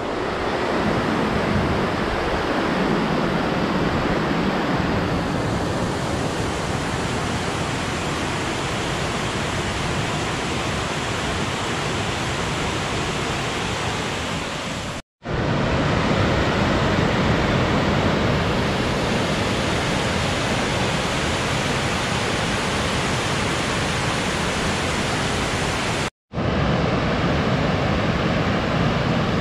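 Water pouring over a dam, a steady rushing noise, broken twice by an instant of silence.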